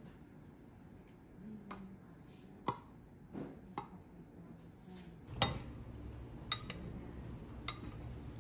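Metal spoon clinking against a drinking glass as soft tofu and syrup are spooned in and stirred: several separate light clinks, the sharpest about five seconds in.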